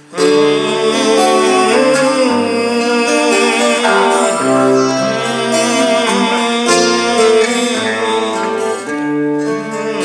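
Acoustic guitar strummed in the song's closing instrumental passage, with long held melody notes over the chords.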